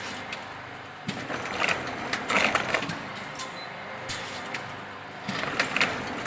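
Chain link fence weaving machine running: a steady mechanical run with metallic clicking and clattering of wire and sprockets as the diamond mesh is woven and rolled, louder from about a second in to three seconds and again near the end.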